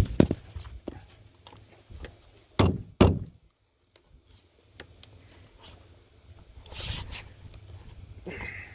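Sharp knocks and thumps of plastic roof-rack trim being pressed and tapped into place on a minivan's roof, with a louder pair about three seconds in, then a softer rustle near the end. The trim is not clicking into place.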